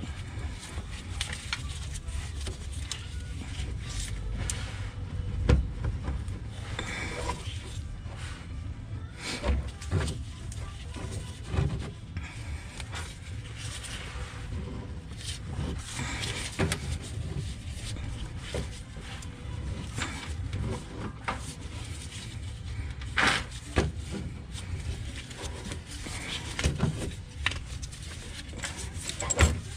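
Scattered knocks and clicks of an oil filter wrench working at a car's oil filter to break it loose, over a steady low rumble.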